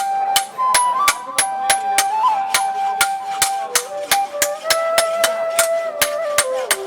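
Evenly spaced hammer blows on metal, about three a second: a blacksmith's hammer striking iron on the anvil. A flute melody plays throughout as background music.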